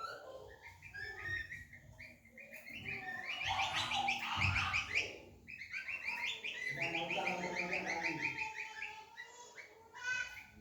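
Kecial kombok songbirds singing in a song contest: long runs of fast, chattering repeated high notes in two main spells.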